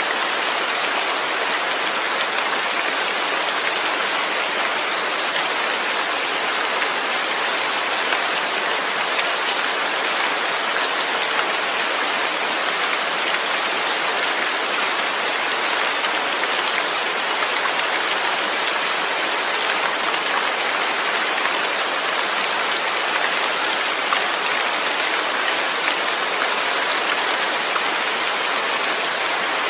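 Steady rain falling, an even, unbroken hiss of many drops with no change in strength.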